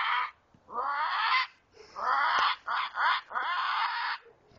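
A person imitating a strange bird call with his voice: a run of about five high, wavering calls with short gaps between, the last one held longest.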